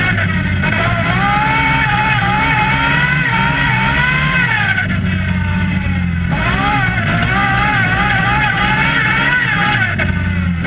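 Quad bike (ATV) engine running under way, its pitch rising and falling as the throttle is worked. About four and a half seconds in it drops away for a moment, then picks up again at about six seconds.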